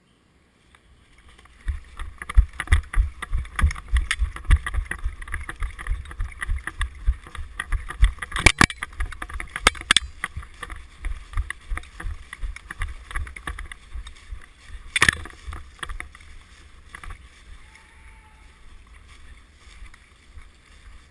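Handling noise on a body-worn camera as the wearer moves, with a rapid, uneven run of deep thumps and rustling. Three sharp clicks come about eight and a half, ten and fifteen seconds in, and the noise dies down near the end.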